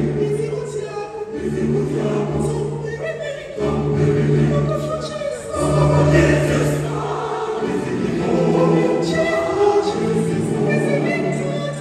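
Mixed choir of men and women singing in parts, in phrases of long held chords that break off and restart every second or two.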